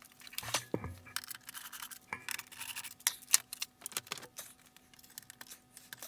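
Hands working on a Grundig 2x4 Super video recorder's case: irregular clicks, taps and scrapes as the top cover comes off and the loose front panel is handled.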